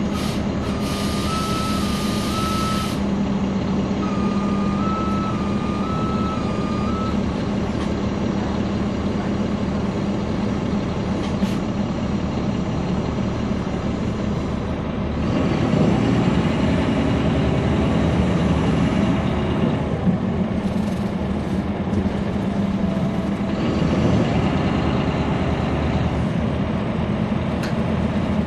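Inside a NABI 416.15 transit bus, its Caterpillar C13 ACERT diesel idles steadily at a stop, with a burst of air hiss about a second in and a two-tone alternating beep repeating for the first several seconds. About halfway through, the engine revs up and runs louder as the bus pulls away.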